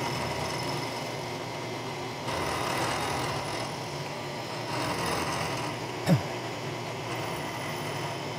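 Vertical milling machine running, its end mill cutting into a metal block: a steady spindle hum with cutting noise that grows louder twice, about two and five seconds in. A short, sharp squeak falling in pitch about six seconds in.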